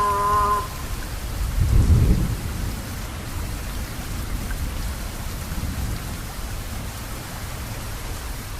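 Steady rain falling, with a low roll of thunder swelling and fading about two seconds in. A muezzin's held note of the call to prayer ends in the first moment.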